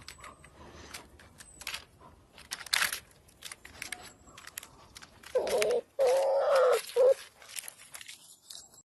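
Scattered small clicks and rustles, then an animal's short high calls, three in a row, about five to seven seconds in.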